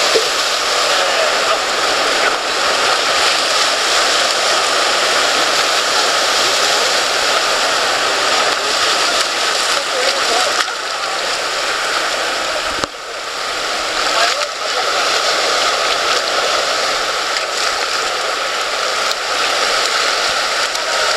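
Surf breaking on a rocky shore and washing between the rocks, a steady, loud rush of water noise. About 13 s in the level drops sharply for a moment.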